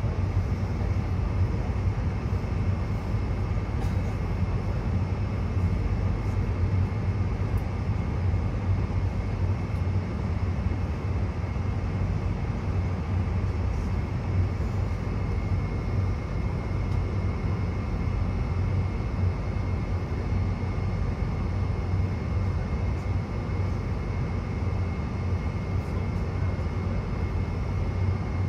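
Steady low cabin drone inside a Boeing 747-400 taxiing with its engines at idle, with a faint high steady whine over it.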